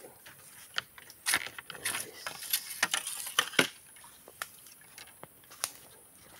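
Handling and rustling noise: a run of irregular sharp clicks and crackles, thickest between about one and four seconds in, then thinning out.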